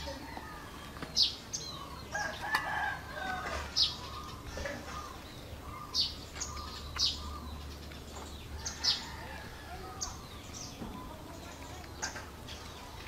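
Bird chirping: short, sharp, high chirps that fall in pitch, repeated every one to two seconds, with some softer warbling about two to three seconds in.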